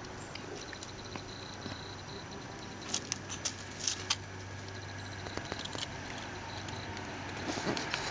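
Pet rabbits rustling and scratching about on gravel and dry grass, with a cluster of short, sharp crackles about three to four seconds in.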